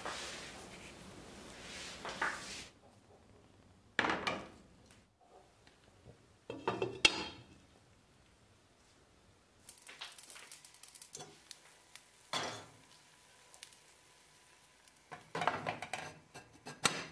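Kitchen utensils scraping, clinking and knocking against a frying pan and dishes, in several separate bursts with short pauses between them and one sharp knock near the middle.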